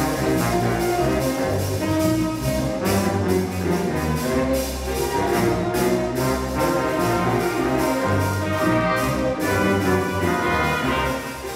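School jazz band playing: saxophones and brass over electric guitars and bass guitar, with percussion keeping a regular beat.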